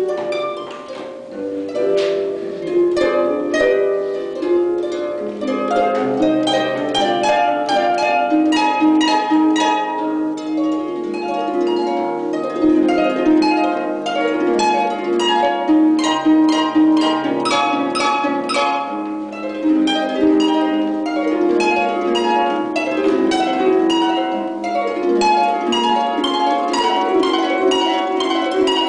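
Solo concert pedal harp playing classical music: a continuous flow of plucked, ringing notes, with a bass line under quick arpeggiated figures in the middle and upper register.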